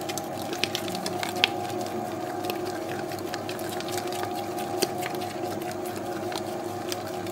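Dough mixer running steadily, its motor humming with a couple of steady tones as it kneads a soft, wet pizza dough, with scattered sharp clicks.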